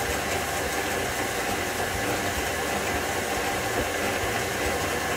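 Electric stand mixer running steadily, its paddle beating sugar, brown sugar and coconut oil together in a stainless steel bowl.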